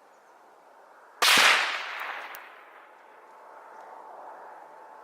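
A single shot from an 8mm Mauser bolt-action rifle about a second in, sharp and loud, then echoing away over about a second and a half.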